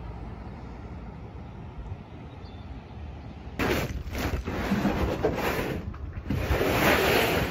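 Outdoor wind on the microphone: a low steady rumble, then gusts of hissing wind noise break in suddenly about halfway through and grow loudest near the end.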